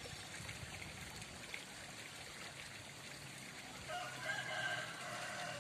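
Steady trickle of running water. About four seconds in, a voice comes in over it for a second or two.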